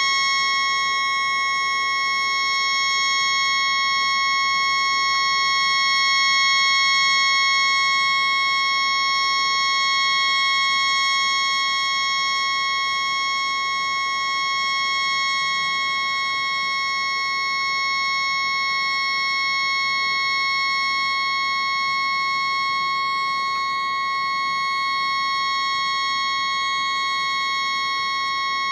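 Stuck tugboat horn sounding one continuous, unbroken note, its horn jammed on by a malfunction. Sped up fourfold, it is a high-pitched steady tone over a faint background hiss.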